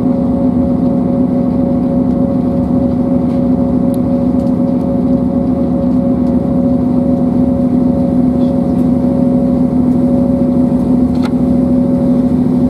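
Class 158 diesel multiple unit running at a steady speed, heard from inside the carriage: a constant drone from the underfloor diesel engine, with a couple of held tones, over the rumble of the wheels on the rails.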